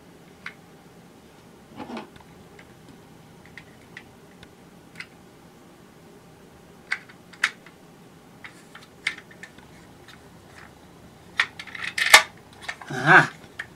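Small hard plastic parts of a toy's gearbox housing clicking and tapping as they are handled and pressed together, with a quick cluster of louder clicks near the end.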